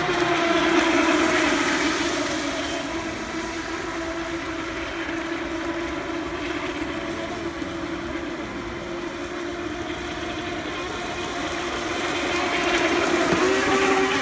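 A pack of Pro Boat Recoil radio-controlled electric racing boats running flat out. Their brushless motors give a steady whine over the hiss of water spray, fading as the boats move away and growing louder again near the end as they pass close.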